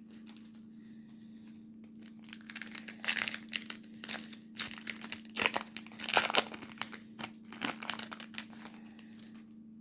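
Foil wrapper of a Topps baseball card pack being torn open and crinkled, in irregular bursts for several seconds, over a steady low hum.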